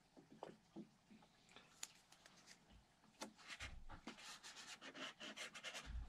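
Faint handling noises of a model airplane cowl being shifted and pressed against the fuselage by hand: soft rubbing and rustling with light clicks, busier in the second half.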